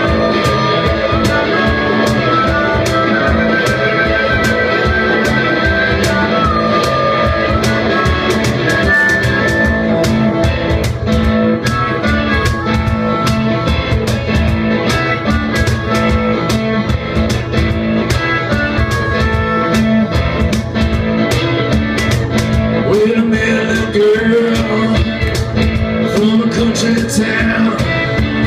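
Live blues-rock band playing: guitar lines over bass and drums with a steady beat.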